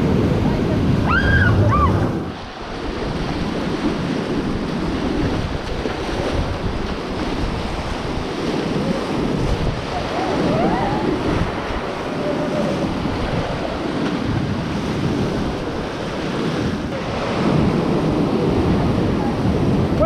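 Whitewater rapids rushing and splashing loudly around an inflatable paddle raft, with wind buffeting the camera's microphone.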